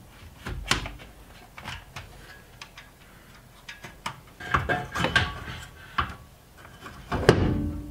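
Irregular metallic knocks, clicks and clanks as a steel dashboard crossbar and fuse box bracket are handled and fitted, a few of them ringing briefly.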